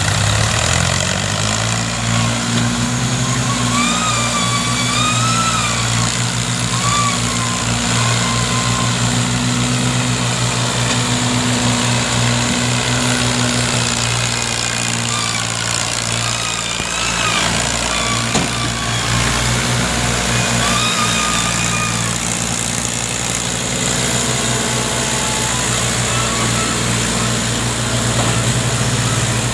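Farm tractor's diesel engine running steadily under heavy load as it pulls an overloaded sugarcane trolley.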